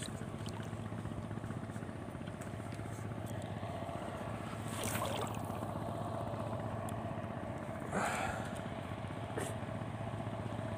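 Small boat's engine running steadily under way, an even drone with constant pitch, with a couple of brief louder rushes of noise about five and eight seconds in.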